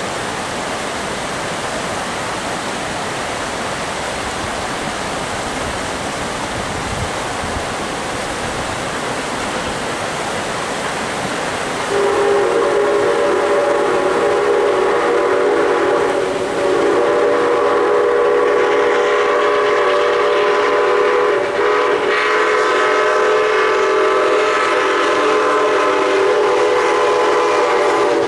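Rushing water of a rocky stream, then, about twelve seconds in, the steam whistle of Canadian National O-18a 0-6-0 locomotive 7470 blowing long, loud blasts with two brief breaks as it approaches a road crossing.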